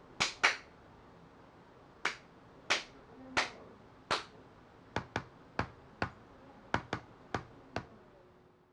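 A run of about fourteen sharp, separate clicks made by hand at a membrane gaming keyboard: spaced out over the first four seconds, then quicker and crisper over the next three.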